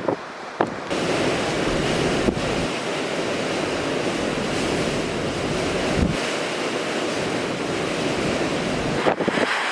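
Blizzard wind blowing across the microphone as a steady rushing noise, setting in about a second in after a few brief buffets.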